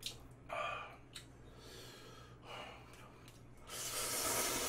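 Two short, sharp breaths drawn in through the mouth. Then, near the end, a long hissing slurp of a mouthful of Buldak spicy stir-fried noodles lasting about a second and a half, the loudest sound here.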